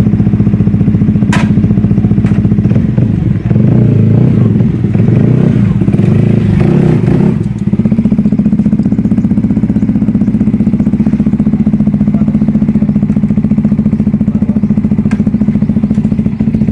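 Yamaha R15 V3's single-cylinder 155 cc engine running through an Austin Racing aftermarket exhaust pipe: idling steadily, revved up for a few seconds about three seconds in, then dropping back to idle.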